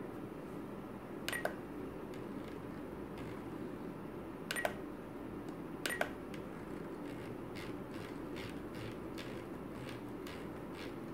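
Spektrum DX9 radio transmitter's scroll wheel and buttons being worked while setting sub trim: a few sharp clicks with short beeps, then a quick run of fainter ticks in the second half as the wheel is rolled step by step.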